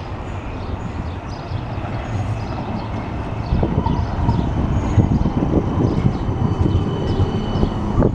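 CAF Urbos 3 low-floor tram approaching and passing close by, its wheels rumbling on the rails. The rumble grows louder and rougher about three and a half seconds in as the tram draws alongside.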